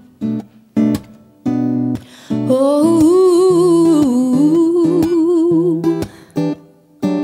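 Acoustic guitar with a capo playing short, separated chords, then a wordless sung line with vibrato over it from about two seconds in until about six seconds, before the short chords return.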